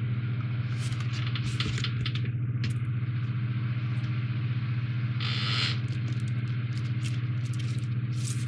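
A steady low hum with several even overtones, with light rustles and taps of stiff printed card sheets being handled. The clearest is a short sliding scrape a little past five seconds in.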